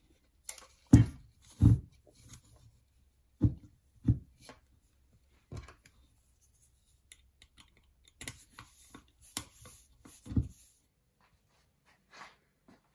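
Handling noise from a PVC pipe and its bolted fittings being turned over in the hands: irregular knocks and clicks, several of them dull thumps, with a quick run of lighter clicks later on.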